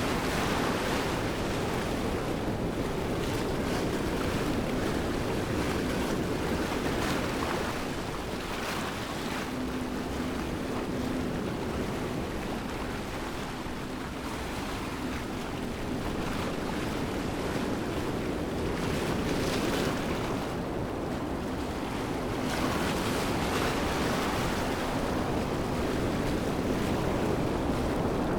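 Steady rush of a waterfall, the sound easing a little in the middle and swelling again.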